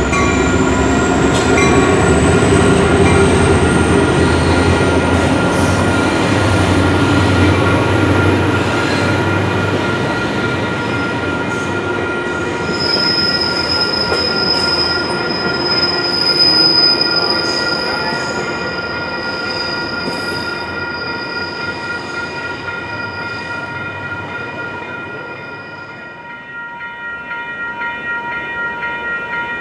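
Coaster commuter train led by an F40PHM-2C diesel locomotive passing over a grade crossing. The locomotive's engine rumbles heavily for the first ten seconds or so, then the bilevel cars roll by with a long, high wheel squeal through the middle. Steady grade-crossing bells ring throughout, and near the end the train sound drops away, leaving the bells ringing.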